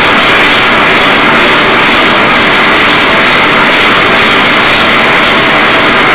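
Loud, steady roaring hiss of a gas torch flame playing on the water pot of a homemade Hero's steam engine, with no breaks or changes.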